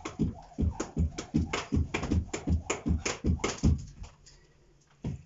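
Skipping rope: the rope slapping the carpeted floor and the feet landing in a quick, even rhythm of about four strikes a second, stopping about four seconds in, with one more knock near the end.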